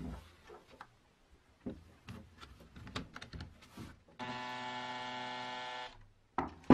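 Cordless drill running at a steady speed for under two seconds, about four seconds in, spinning the wooden crank handle of an antique meat grinder held in its chuck. It is preceded by scattered light knocks and clicks from handling the drill and handle, and followed by a sharp knock at the very end.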